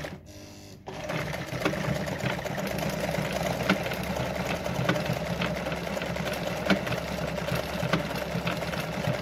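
Brother Pacesetter ZZ2-B702F sewing machine starting up about a second in, then running steadily with light ticking as it sews a decorative stitch through denim.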